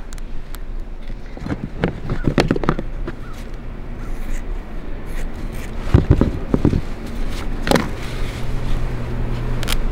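Polyester fleece being cut with scissors and handled: scattered snips and rustles, the sharpest about six seconds in, over a steady low hum.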